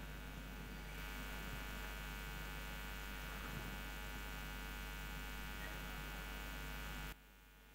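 Steady electrical mains hum, a low drone with many steady overtones, which stops abruptly near the end.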